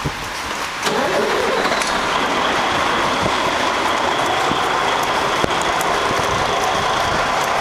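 A motor vehicle's engine running steadily, coming in suddenly about a second in, with a faint steady high whine over it.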